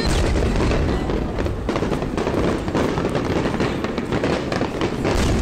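Aerial fireworks bursting in quick succession: deep booms over steady crackling, with the heaviest booms at the very start and again near the end.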